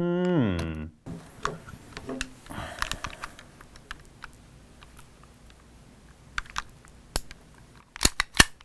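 Small clicks and handling noises from a Sig Sauer Spartan 1911 CO2 BB pistol being felt over and worked by hand, with a few sharper clicks near the end.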